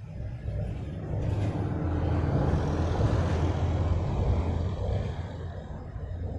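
A vehicle crossing a road bridge, heard from underneath the deck: a deep rumble that swells from about a second in, is loudest around three seconds, and fades away near the end.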